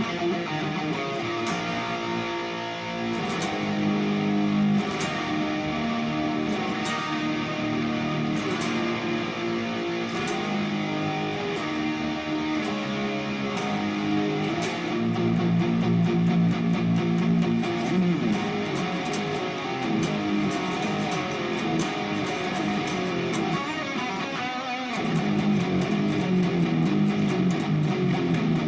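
Harley Benton SC-500 Les Paul–style electric guitar played through the Overloud TH3 amp simulator: strummed, sustained chords and riffs with sharp pick attacks.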